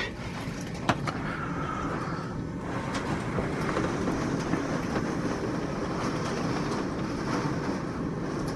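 Strong thunderstorm wind blowing outside as a steady rushing noise that builds slightly, with a single click about a second in.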